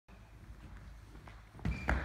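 A volleyball player's sneakers running an approach on a wooden gym floor: faint steps at first, then about a second and a half in the louder plant of the feet with a brief shoe squeak as he takes off for the jump.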